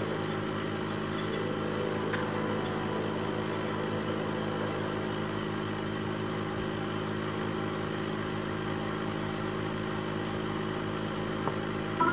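Aquarium air pump running with a steady hum and a hiss of air.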